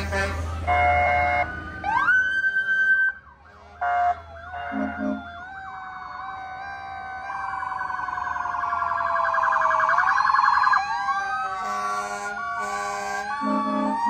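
Several emergency-vehicle sirens sounding at once in a passing parade, their tones wailing up and down and overlapping, with a fast warble in the middle. Short, steady horn-like blasts sound at the start and again near the end.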